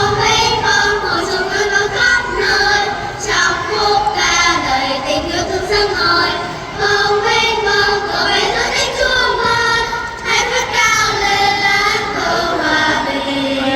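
Children's choir singing a Vietnamese song.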